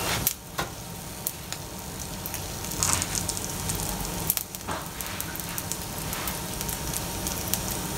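Oil sizzling in a frying pan under split dried bisugo fish, with scattered small crackles and pops.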